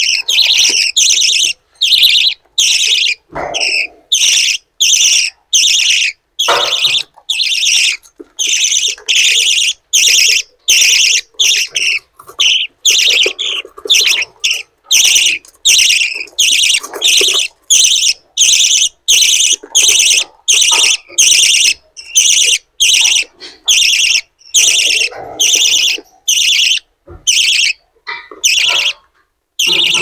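Budgerigar chicks begging for food, a constant run of short, harsh, buzzy calls repeated nearly twice a second.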